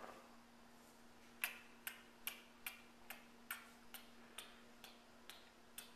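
A series of about eleven sharp, evenly spaced clicks, a little over two a second, starting about a second and a half in and growing fainter, over a faint steady hum.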